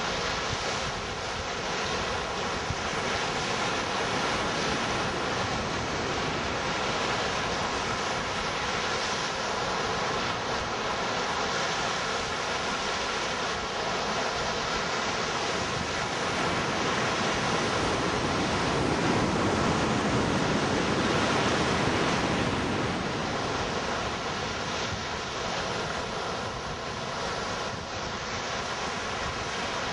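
Sea surf breaking on a beach: a steady wash of waves with wind buffeting the microphone, one wave swelling louder about two-thirds of the way through.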